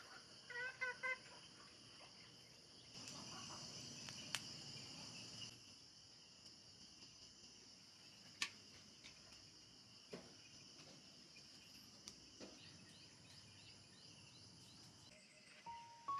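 Faint outdoor background of insects chirring steadily, a little louder for a couple of seconds early in the clip, with a short turkey gobble right at the start and a few isolated sharp clicks.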